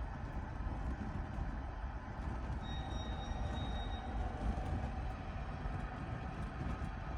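Wood fire burning in a fireplace: a steady low rumble with faint scattered crackles. A thin high whistle sounds briefly about three seconds in.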